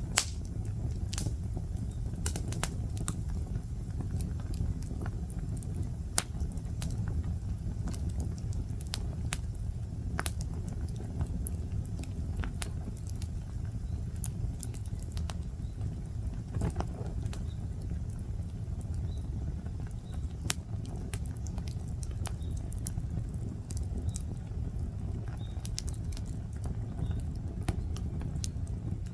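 Wood bonfire crackling: irregular sharp pops and snaps over a steady low rumble.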